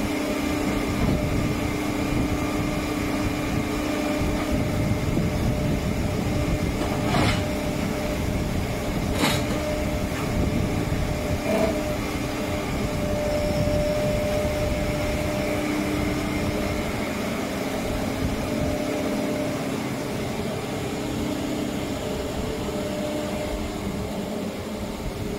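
Menzi Muck walking excavator running steadily, its engine rumble carrying a steady whine, with two sharp knocks about seven and nine seconds in.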